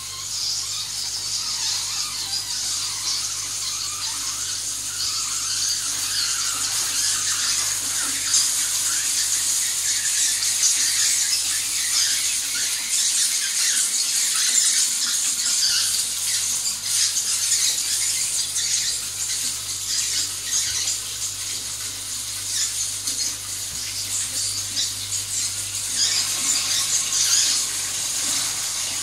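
Steady high hiss of water in a slab urinal's flushing plumbing, with a faint squealing edge.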